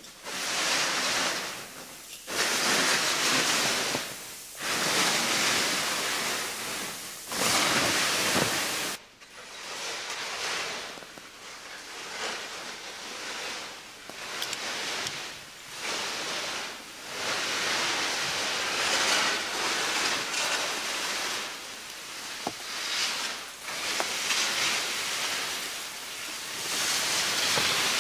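Skis hissing and scraping over firm snow in a run of linked turns, each swell of hiss lasting a second or two with short lulls between.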